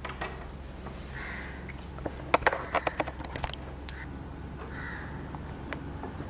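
A quick run of sharp clicks from a wooden door's handle and latch as the door is worked and eased open. A bird calls a few times.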